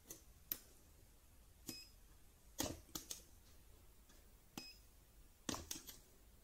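Cheap DIY battery spot welder firing weld pulses into a thin metal strip through a handheld pen probe: a series of about nine sharp, irregularly spaced snaps, two of them followed by a short high beep.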